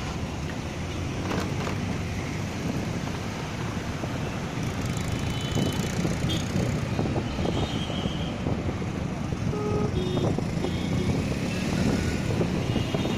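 Steady road and traffic noise heard from a moving vehicle, with a few short beeps of vehicle horns.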